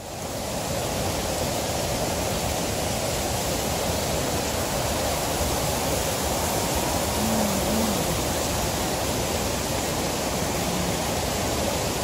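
Steady rushing of a tall waterfall and the river pouring through a rocky gorge, an even, dense wash of water noise that fades in at the start.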